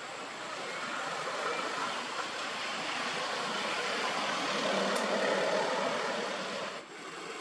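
A passing vehicle heard as a rushing noise. It builds to a peak about five seconds in, then drops off sharply near the end.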